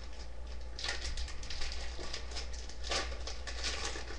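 Foil wrapper of a hockey card pack crinkling as it is handled and torn open: a dense run of small crackles that starts about a second in.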